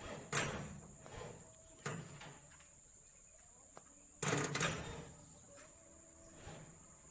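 Ignition key turned to start on a Komatsu motor grader: the battery relay and starter circuit clack loudly several times, two in quick succession about four seconds in, each trailing off briefly, and the engine does not crank because the battery is drained.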